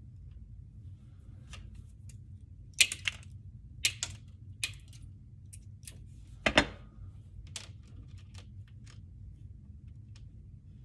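Irregular sharp clicks and snips of hand cutting, the loudest a close pair about three seconds in and another about six and a half seconds in, over a low steady hum.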